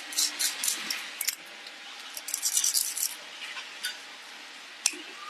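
Light metallic clinking and jingling of small metal objects, in two short clusters with a few single clicks after.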